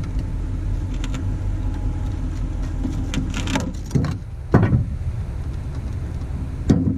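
A vehicle engine running steadily at low revs, with a few sharp knocks and clunks, the loudest about four and a half seconds in and another near the end.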